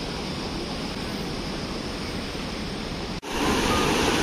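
Steady rushing noise of outdoor water and air. After a sudden cut about three seconds in comes the louder, steady rush of a swollen, muddy river in flood pouring over boulders.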